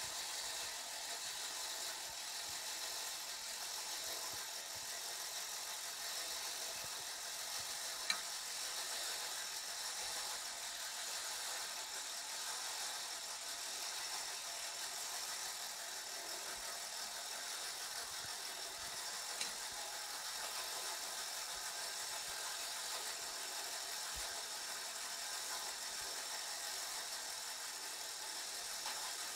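Clockwork mechanism of a Schuco Flic 4520 wind-up traffic-policeman toy running, a steady whirr as the figure turns and moves its arms, with a few single clicks.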